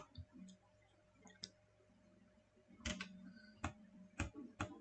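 Faint, scattered computer mouse clicks: two lone clicks in the first second and a half, then about five more in quick succession from about three seconds in.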